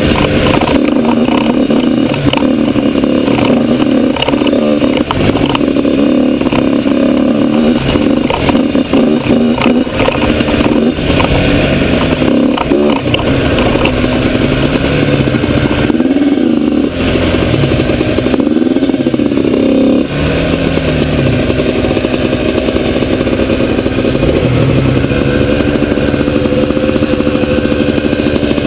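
Yamaha YZ85 two-stroke dirt bike engine being ridden, its revs rising and falling with the throttle; after about twenty seconds the engine settles to a steady note.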